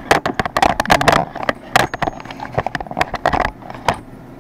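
Metal hand tools clattering as they are rummaged through in a tool drawer: a rapid jumble of clinks and knocks that stops about three and a half seconds in.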